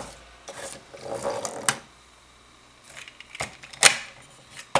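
Plastic Rescue Bots Heatwave toy being transformed by hand from fire truck to robot: rustling handling and a handful of sharp clicks as parts snap into place, the loudest about four seconds in.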